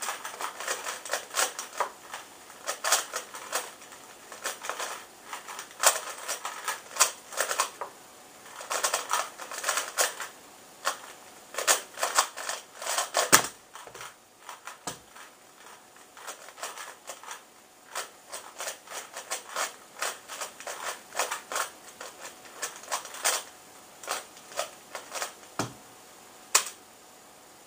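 3x3 Rubik's cube being turned at speed: a fast, dense run of plastic clicks and clacks from the layers for about thirteen seconds, ending in one loud knock as the solve is stopped. After a short lull the cube is turned again at a slower, more even pace.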